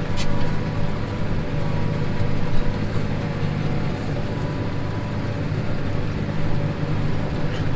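Tractor engine running steadily under load while baling, a constant hum with a faint steady whine above it.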